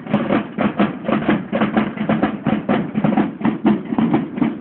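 Banda de guerra of field drums and bugles playing a march, the drums beating a steady rhythm of about five strokes a second.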